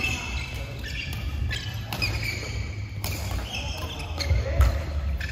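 Badminton rackets striking shuttlecocks, sharp irregular smacks coming from several courts in a large sports hall, with shoes squeaking on the court mats over a steady low hum.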